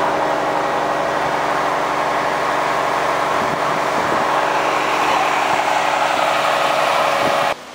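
Fire engine's diesel engine idling, a steady even hum; it cuts off abruptly near the end.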